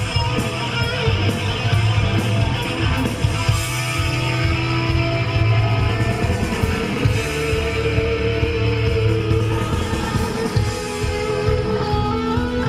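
Live hard rock band playing loud: distorted electric guitars, bass guitar and drum kit, with guitar notes held for a second or two at a time over the driving rhythm.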